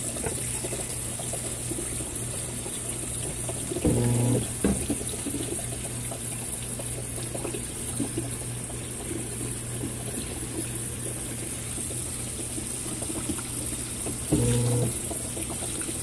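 Consul 16 kg top-load washing machine filling: water running steadily into the tub over a low hum, with a short, louder buzz twice, about four seconds in and again near the end.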